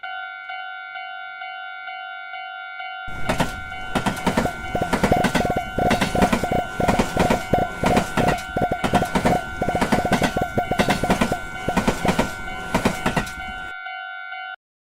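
Railroad crossing warning bell ringing as a steady, even tone. From about three seconds in a train passes, its wheels clattering rapidly over the rail joints, louder than the bell. The train clears near the end, and the bell rings alone briefly before stopping.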